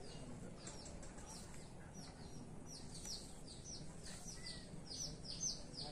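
Small birds chirping, a rapid run of short, high, downward-sliding chirps, several a second, thickening toward the end.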